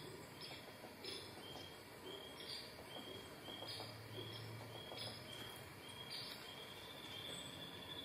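Crickets chirping: a short high chirp repeating about twice a second, with other irregular higher chirps over a faint background hiss.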